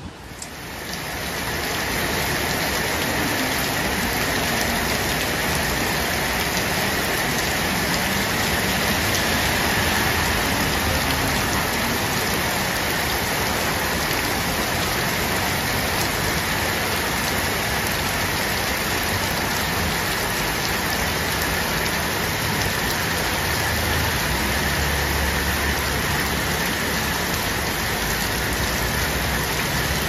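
Heavy rain falling steadily, a dense even hiss that fades in over the first couple of seconds.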